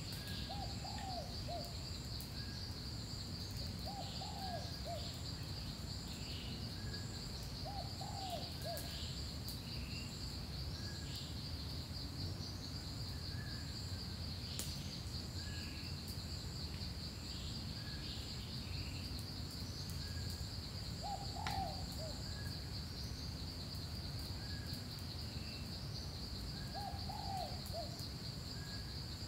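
Forest ambience: a steady, high, pulsing insect trill throughout, with a bird giving a short falling low call five times, several seconds apart. Faint short chirps from another bird come about every second and a half.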